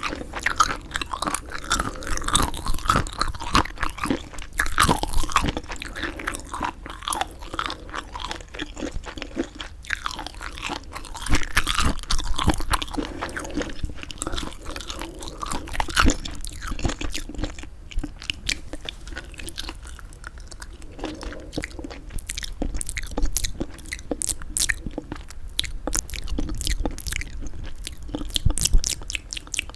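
Close-miked chewing of semi-dried squid: a continual run of short, irregular mouth clicks and smacks, growing quicker and sharper in the last several seconds.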